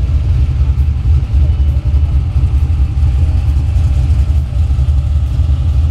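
Engines of classic race cars running close by, a loud, steady low rumble.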